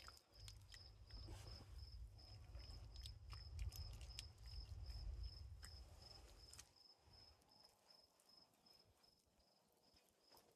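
Faint, steady high-pitched chirping of a cricket, about four or five even pulses a second. A low rumble sits under it and stops about two-thirds of the way through, with a few faint clicks scattered across.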